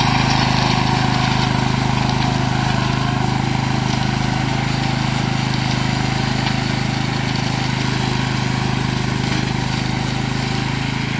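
The 13 hp Tosaka petrol engine of a FrankTech RCM 3X3A remote-controlled lawn mower running steadily while the mower cuts through tall grass.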